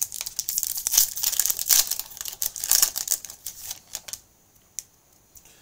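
A trading-card pack wrapper crinkling and tearing as it is opened, in quick rustling strokes that die away about four seconds in.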